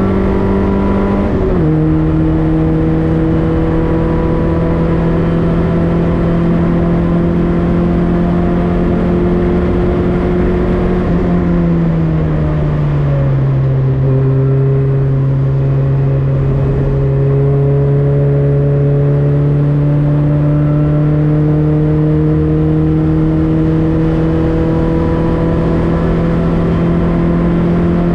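Citroen Saxo race car's four-cylinder engine running under load. Its note drops suddenly about a second and a half in, holds steady, sinks lower again around halfway, then climbs slowly.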